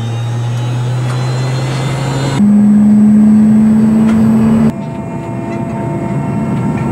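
Helicopter cabin noise inside a Mi-8: the turbine engines and rotor transmission running with a steady whine over a hum. The sound changes abruptly twice, about two and a half and about five seconds in; the middle stretch is the loudest, with a higher steady hum.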